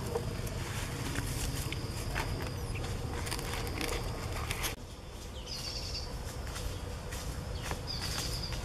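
Outdoor ambience under trees: a steady low rumble with scattered light clicks and rustles from handling the stick skewer and leaves. Two short high chirps come about five and a half seconds and eight seconds in.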